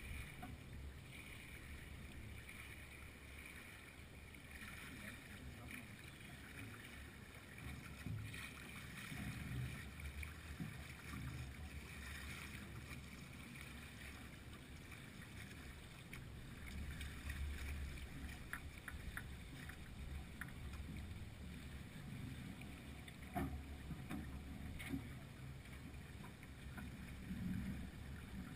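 Water washing softly along the hull of a Beneteau sailing yacht under sail in light wind, with a steady low wind rumble on the microphone. A few faint clicks and soft knocks come in the second half.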